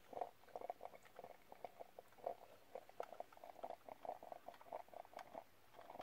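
Faint, irregular crackling and ticking of water heating in a portable 12 V car-socket coffee maker, small pops as the water works toward the boil.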